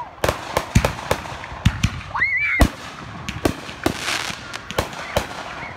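Aerial fireworks going off: a fast, irregular string of sharp bangs and pops from shells bursting overhead, with a brief high-pitched tone about two seconds in.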